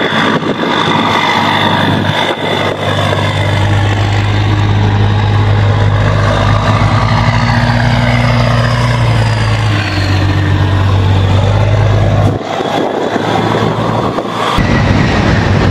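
Heavy military wheeled vehicles rolling past in a column, an eight-wheeled Amphibious Combat Vehicle and Joint Light Tactical Vehicles, their diesel engines running with a steady low hum and drivetrain whine. A higher whine rises and falls around the middle, and the sound changes abruptly twice near the end.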